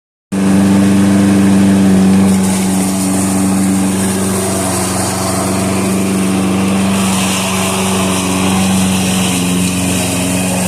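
Small gasoline lawn-equipment engine running steadily at constant speed, cutting in abruptly just after the start.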